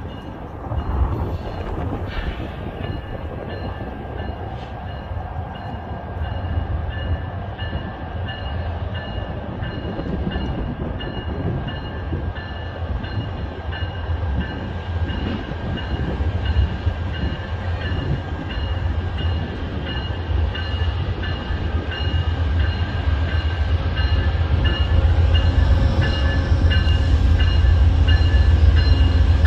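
Amtrak GE P42DC diesel locomotives approaching, their engine rumble growing steadily louder. A repeating ringing tone runs through it, typical of the locomotive bell.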